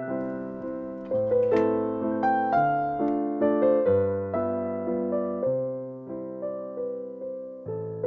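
Background music: a slow piano melody, struck notes and chords that ring and fade one after another.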